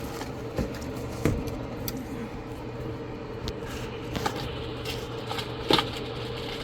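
A steady low hum, with a few light clicks and taps from small repair tools being handled at the bench while flux is applied to the charging-port pins.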